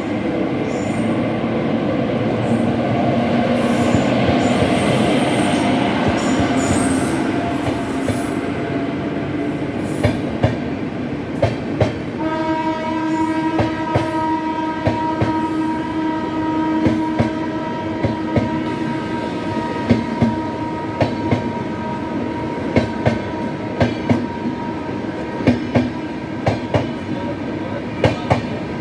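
Accelerating train running on the rails: a rumble at first, then the sharp clickety-clack of wheels striking rail joints from about a third of the way in. About halfway through, a steady whine joins and holds.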